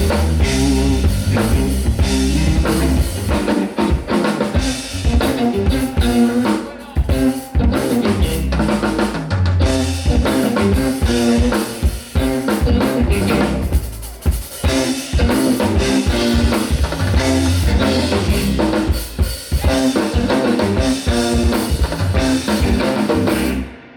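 Live rock band playing, drum kit driving with bass guitar and electric guitar underneath; the music stops right at the end.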